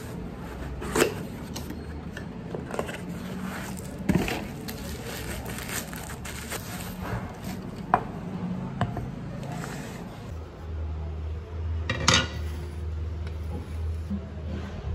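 Cardboard box and a diatomite cutlery holder and mat handled and set down on a stone countertop: rustling and scraping with several sharp knocks, the loudest about twelve seconds in, over a steady low hum.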